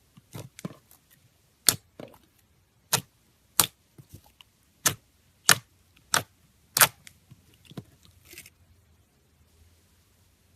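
Slime being pressed and squeezed by hand, trapped air pockets bursting in a string of sharp, irregular pops, about ten in seven seconds, thinning out towards the end.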